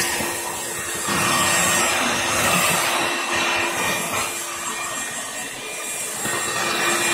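Vacuum cleaner running with a steady motor whine, its hose sucking through litter and roaches on a bedroom floor. The suction noise swells about a second in, eases in the middle and swells again near the end as the nozzle moves.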